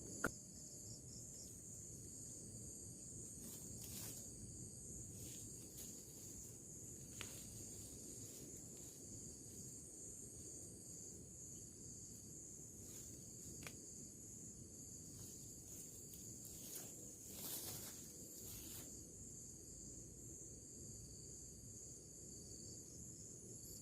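Steady, high-pitched chorus of insects in the undergrowth, with a few faint clicks and knocks scattered through it.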